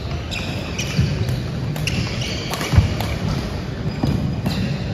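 Badminton rally in a large gym hall: sharp strikes and quick footfalls on the wooden court, with short high squeaks of court shoes, all echoing in the hall. The loudest is a single low thud nearly three seconds in.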